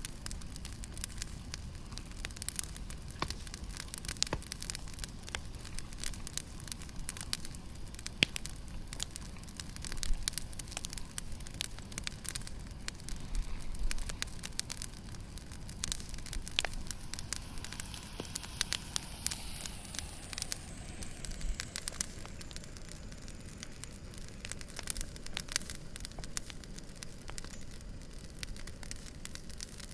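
Wood campfire burning, crackling with frequent sharp pops. About two-thirds of the way through, a faint whistle falls in pitch.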